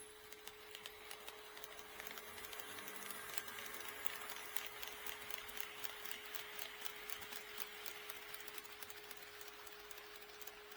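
HO-scale model train running past on sectional track, its wheels clicking rhythmically over the rail joints. The clicking swells about two seconds in and fades toward the end, over a steady hum.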